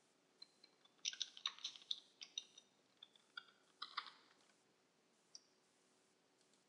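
Computer keyboard typing: a quick run of keystrokes from about one to four seconds in, then a single keystroke a little later.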